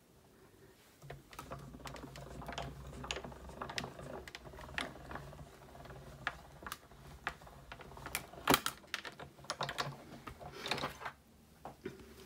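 Hand-cranked die-cutting machine being turned, feeding a cutting-plate sandwich with a steel die and cardstock through its rollers: a low steady rumble with many small clicks, and a few louder clacks in the later seconds.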